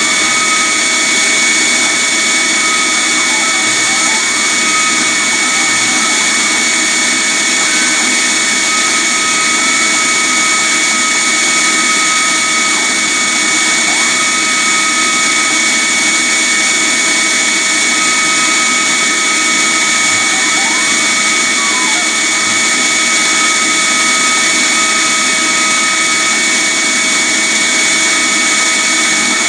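A vacuum running steadily and loudly, a constant whine with several fixed tones. Now and then a faint whine rises and falls in pitch over it, from the CNC router's axis motors moving the laser head.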